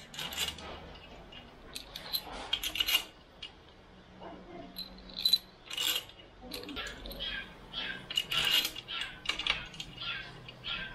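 Irregular light metallic clinks and taps as steel bolts and crankshaft main bearing caps are handled and fitted on an engine block, some clinks ringing briefly.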